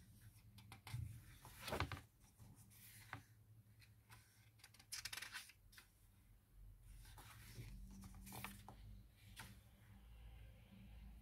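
Faint paper rustles and soft taps as pages of a new hardcover picture book are turned by hand, over a low steady room hum.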